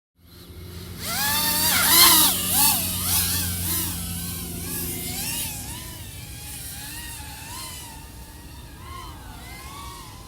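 iFlight AOS 3.5-inch V5 FPV quadcopter's XING 1504 3100KV motors and propellers whining, pitch swinging up and down with throttle changes. It is loudest about two seconds in, then quieter and steadier.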